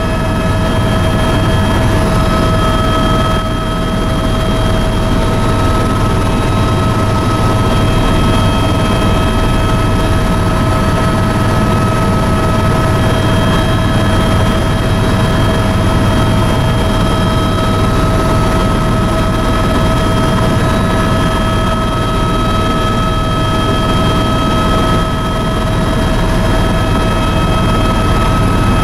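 Helicopter in level flight heard from inside its cabin: loud, steady rotor and engine noise, a low rumble with a steady whine over it.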